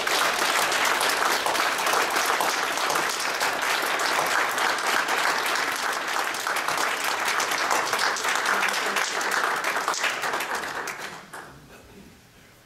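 Audience applauding steadily, then dying away about a second before the end.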